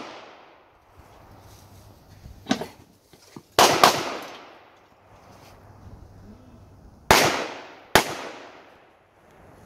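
Handgun shots fired during a defensive-pistol match stage, each followed by a long echo. A quieter shot comes about two and a half seconds in, then a quick pair about a second later, then two more shots about a second apart near the end.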